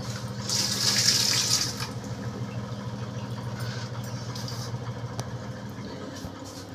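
Kitchen tap opened as the water supply comes back on: a loud rush of water for about a second and a half, then a quieter steady flow. A steady low motor hum runs underneath.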